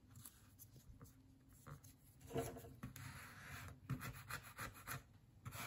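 Hand tool or brush rubbing and scraping over paper as a collage piece is glued down with matte medium. It starts about two seconds in, as a run of short, uneven strokes.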